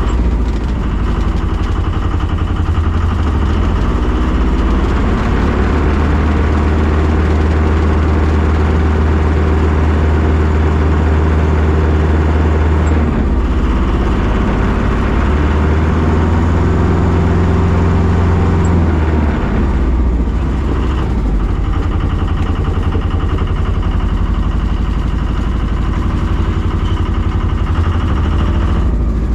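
A sailboat's inboard diesel engine running in gear while the boat backs out of its slip. Its pitch shifts about halfway through and again about two-thirds of the way in as the throttle changes.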